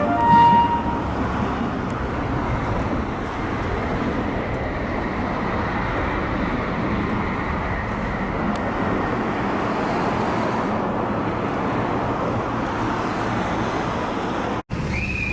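Steady rushing noise of passing trains and road traffic, cut off abruptly for an instant near the end.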